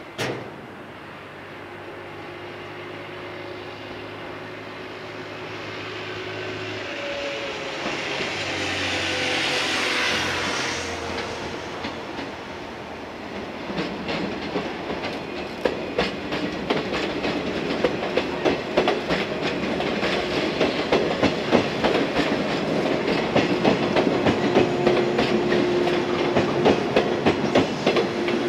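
Electric multiple-unit train approaching and running past over station trackwork, with a single knock at the very start. A steady hum and a rising rumble come first, then, from about halfway, a rapid clickety-clack of wheels over rail joints and points that carries on to the end.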